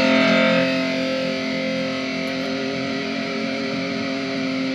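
Electric guitar chord ringing out through a Positive Grid Spark practice amp, struck just before and held so that it fades only slowly, with the amp's ground-noise behind it from an ungrounded connection.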